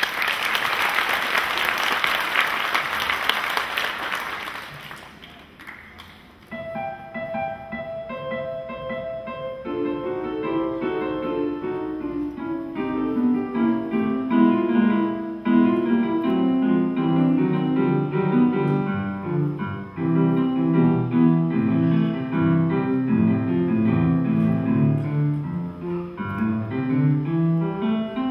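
Audience applauding for about five seconds, then a solo piano piece begins about six seconds in: a melody alone at first, with a lower left-hand part joining a few seconds later.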